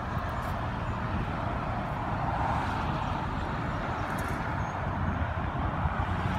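The 396 big-block V8 of a 600 hp Chevrolet Chevelle SS idling through its exhaust, a steady low, pulsing sound that gets a little louder toward the end.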